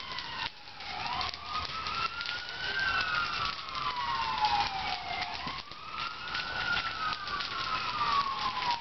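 Emergency-vehicle sirens wailing, slowly rising and falling about every four to five seconds, with two wails overlapping at times, over the steady crackling of a large shed fire.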